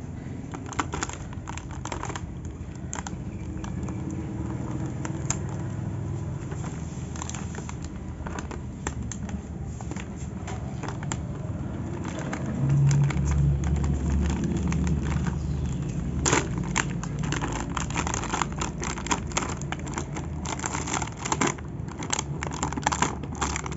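Plastic toy packaging crinkling, crackling and tearing as it is pulled open by hand, with many sharp crackles. A low rumble comes in about halfway through and lasts a few seconds.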